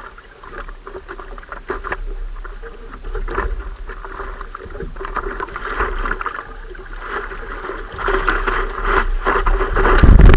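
Water splashing and sloshing against a surfboard as the surfer paddles it with his arms, in irregular strokes. The splashing grows louder over the last couple of seconds as the wave lifts the board.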